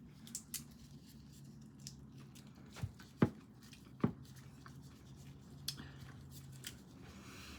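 Raw shrimp being peeled by hand: scattered soft clicks and crackles of shell, with three sharper snaps about three to four seconds in, over a faint steady low hum.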